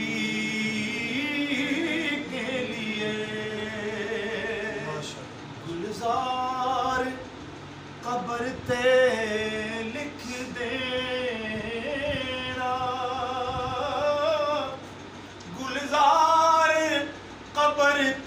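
A solo male voice reciting a naat without instruments: long, wavering held notes in phrases, with short breaths between them.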